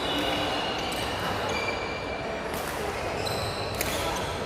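Court shoes squeaking on a sports-hall floor during a badminton rally: several short, high squeaks over the steady din of the hall, with sharp racket-on-shuttlecock hits about two and a half and about four seconds in.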